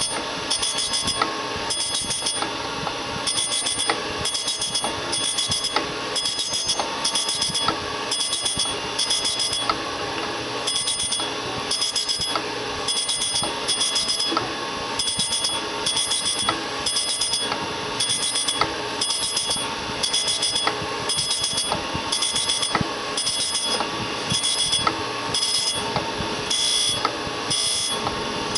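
Surface grinder grinding the tops of stacked steel clamps flat and parallel. The wheel's high ringing hiss comes and goes in a quick, uneven rhythm as the table carries the work back and forth under it, over the steady running of the machine.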